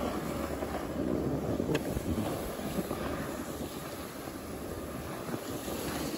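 Steady rush of wind over the microphone mixed with the hiss and scrape of riding down groomed snow, with a faint click a little under two seconds in.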